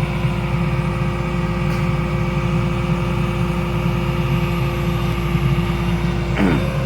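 Excavator's diesel engine running steadily at an even speed, a low rumble with a constant hum.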